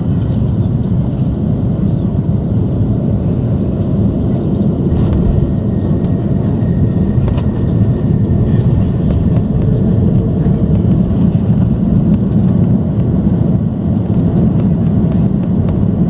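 Cabin noise of an Airbus A330-303 with GE CF6 engines during landing on the runway: a loud, steady low rush of engines and airflow, growing a little louder in the second half as the ground spoilers are up.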